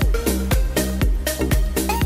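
Upbeat electronic dance background music with a steady quick beat, about four beats a second, over bass and synth melody notes.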